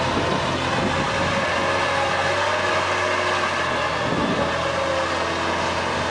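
Liebherr L 586 wheel loader running as it drives: a steady heavy diesel engine note with a whine held over it.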